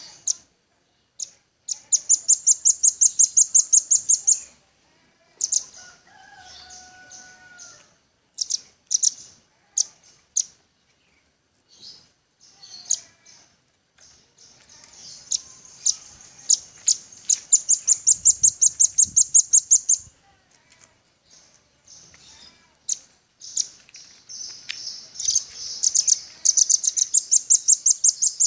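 Velvet-fronted nuthatch calling: rapid trills of sharp, high chips, about seven a second, in bursts lasting a few seconds, with scattered single chips between them.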